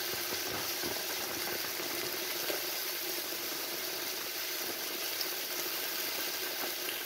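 Mixed vegetables and spices frying in hot mustard oil in a wok, giving a steady sizzling hiss.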